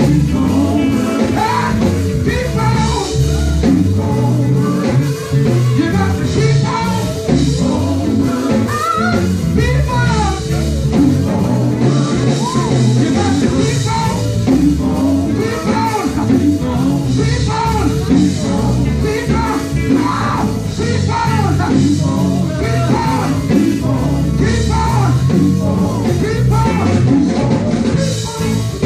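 Live gospel quartet music: male voices singing over a band with guitar and drums, continuous and loud.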